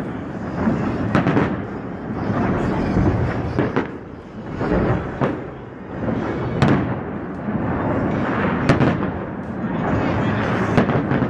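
Aerial fireworks show in full barrage: shell bursts follow one another in a continuous rumble, with sharper, louder bangs every couple of seconds.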